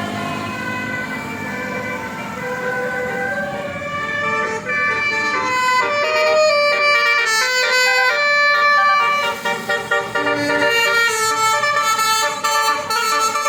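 Basuri musical bus horn playing a tune in stepped notes, louder from about five seconds in.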